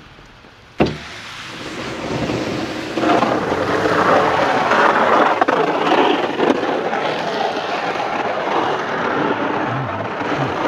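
Snow plow on a pickup truck pushing and scraping snow across the pavement: a steady rushing noise that swells in about two seconds in and stays loud. A sharp click comes just under a second in.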